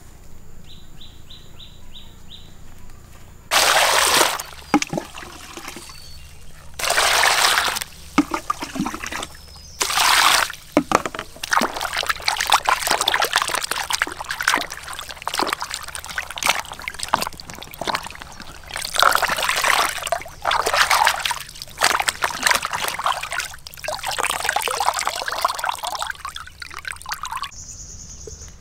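Three short spells of water poured into a basin, then steady splashing and sloshing as a whole plucked chicken is rubbed and rinsed by hand in the water.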